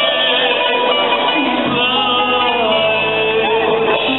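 Live pop band performance: a man singing a gliding melody into a microphone over a band with guitar.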